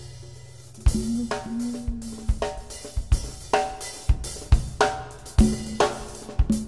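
Recorded instrumental music led by a drum kit: after a held low bass note fades, the kit comes in about a second in with kick, snare and cymbal hits over a bass line.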